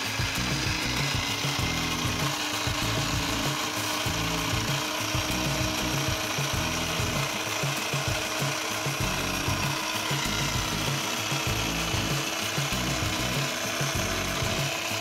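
Electric mini food chopper running steadily, its motor whirring and the blade churning chunky chipotle-adobo sauce into a liquid.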